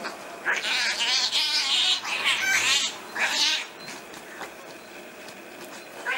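Cats yowling and caterwauling in a fight, with loud wavering calls for about three seconds, then dying down to quieter sounds near the end.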